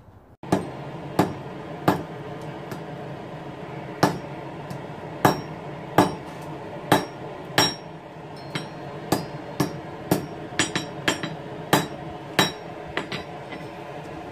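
Hand hammer striking steel on an anvil while drawing out a bar made from an old file: about twenty blows at an uneven pace of one or two a second, each with a short metallic ring, over a steady background rush.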